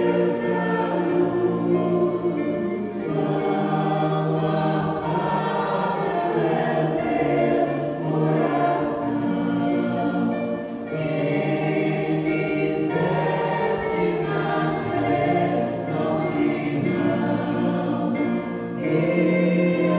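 A choir singing a hymn, with long held notes in phrases and short breaks between them.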